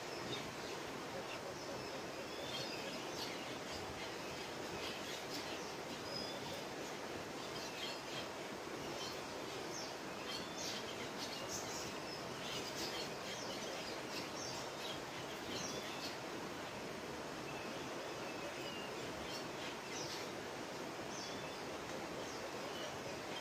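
Outdoor woodland ambience: a steady hiss with many short, high bird chirps scattered throughout.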